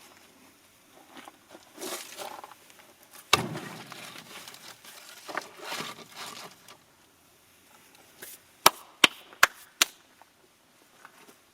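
Wood being chopped: one heavy strike about three seconds in, softer knocking and handling noises, then four quick, sharp knocks a little before the end.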